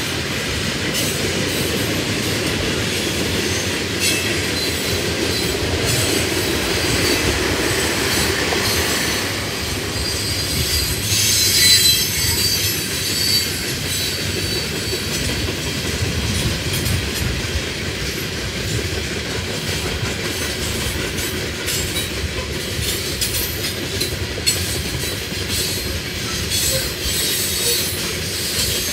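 Freight train cars rolling past on steel wheels: a steady rumble with clickety-clack over the rail joints, and a stretch of high-pitched wheel squeal about twelve seconds in.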